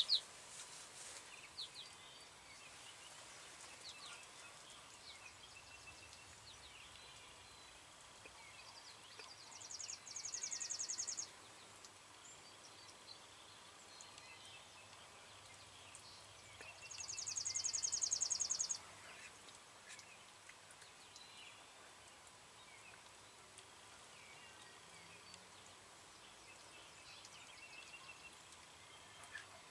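Outdoor spring woodland ambience with a songbird singing a rapid, high, buzzy trill twice. Each trill lasts about two seconds, they come about seven seconds apart, and the second is louder. Faint scattered chirps run under it, and a sharp high sound comes right at the start.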